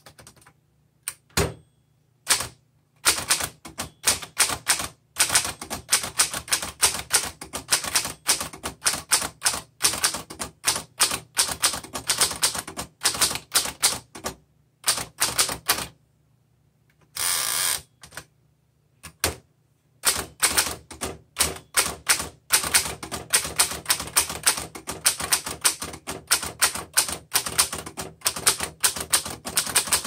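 1927 Underwood Standard 4-bank manual typewriter being typed on: fast runs of sharp key and typebar strikes, with a pause about halfway through. During the pause there is a short sliding rattle as the carriage is pushed back for a new line.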